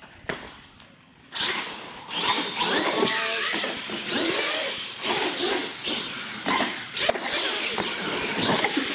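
Radio-controlled monster truck's motor and drivetrain whining, starting about a second in and rising and falling in pitch as the throttle is worked while it drives across a concrete floor.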